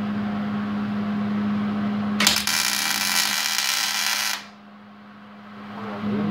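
MIG welder laying a tack weld on a steel chassis rail: the arc crackles and sizzles for about two seconds, starting a little after two seconds in, then stops suddenly. A steady low hum runs beneath it before the weld.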